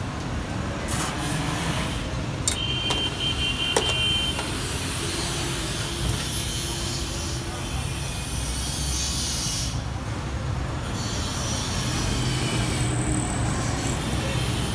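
Steady street traffic noise with a low rumble, and two sharp metallic clicks of steel kebab skewers knocking together, about two and a half and four seconds in. Between the clicks there is a short high beep.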